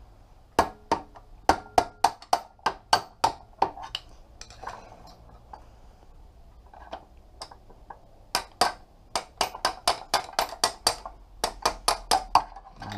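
Hammer striking a long screwdriver used as a drift to knock out the rear wheel axle of an Aprilia RS4 50 motorcycle: sharp metallic blows, about three to four a second, in two runs with a pause of several seconds between them.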